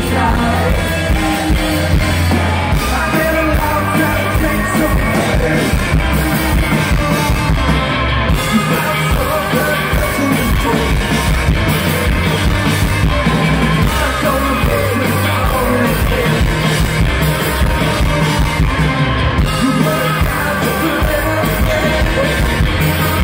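A rock band playing live through a stage PA, with electric guitar, bass, keyboards, drums and a sung lead vocal, heard from among the crowd.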